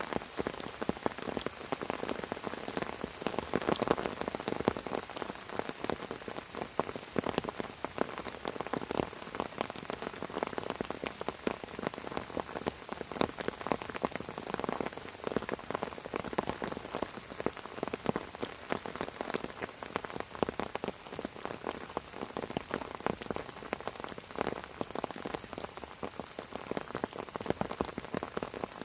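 Steady rain falling on fern fronds, a dense patter of countless drops tapping on the leaves.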